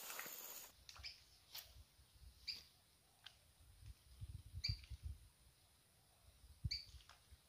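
Faint short high chirps from a small bird, repeating every second or two over quiet outdoor ambience, with a few soft low rumbles in the middle.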